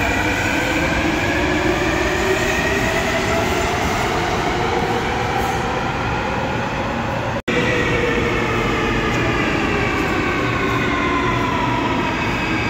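Metro trains running through an underground station, with traction-motor whine over a steady rumble of wheels on rails. Over the first half the whine rises in pitch as a train gathers speed. After a brief cut, a second train's whine falls in pitch as it slows along the platform.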